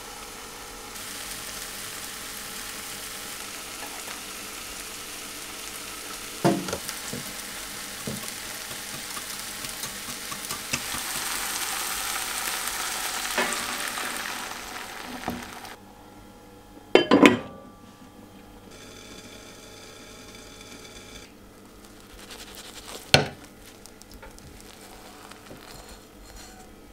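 Tomato slices frying in olive oil in a pan: a steady sizzle that grows louder and then drops away suddenly about halfway through, leaving a faint hiss. A few loud single clatters of pan or utensils stand out, the loudest about two-thirds of the way in.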